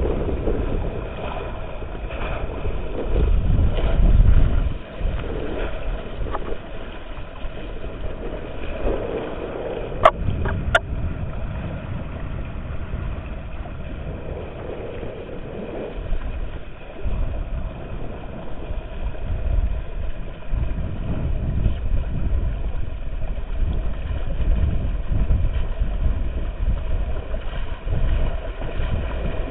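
A boat under way: a steady engine hum under rumbling, gusting noise of wind and water. Two sharp clicks come about ten seconds in.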